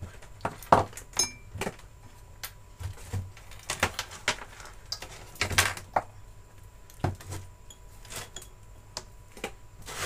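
Irregular clicks and knocks of tools and small objects being handled on a hard workbench, with a digital multimeter set down on the bench in the last few seconds.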